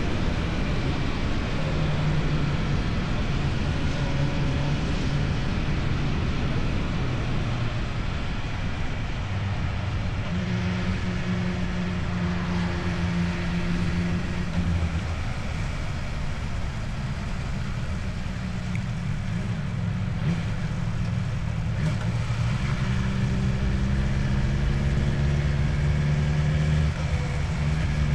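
Motorcycle with an Akrapovic aftermarket exhaust running on the road, its engine note holding steady and then shifting pitch several times with the throttle, over a constant rush of wind and road noise.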